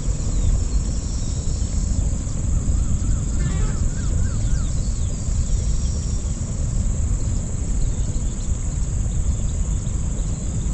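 Outdoor pond-side ambience: a steady, high-pitched drone of insects over a low, even rumble, with a short run of small bird chirps about three to five seconds in.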